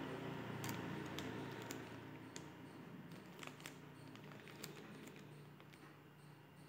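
Faint, irregular clicks of TV remote-control buttons being pressed, a few seconds apart, over a low steady room hum.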